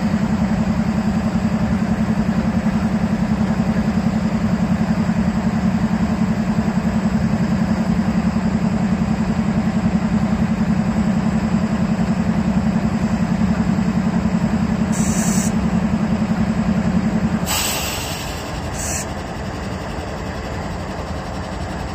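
CSX diesel-electric locomotives standing and idling with a steady low throb. Brief hisses come around 15 seconds in and again near 18 seconds, when the engine sound drops a little quieter.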